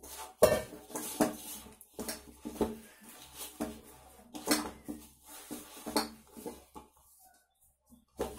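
Stainless steel bowl knocking and ringing as wheat-flour dough is kneaded and pressed in it by hand, in uneven knocks about every half second to a second.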